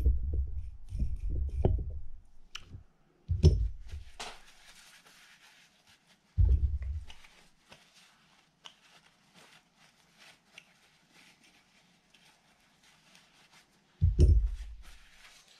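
Paper towel rustling and crinkling as gloved hands are wiped, growing faint toward the end, with a few dull thumps of parts and hands being handled on the work mat.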